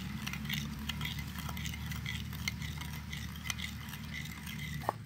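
Metal spoon stirring chili dipping sauce in a ceramic bowl: light, irregular clinks and scrapes of metal on ceramic, over a low steady hum that cuts out near the end.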